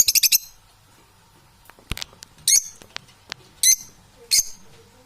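Parrot giving short, harsh, high-pitched squawks, about one a second, after a quick burst of rapid chirps at the start, with a few sharp clicks in between.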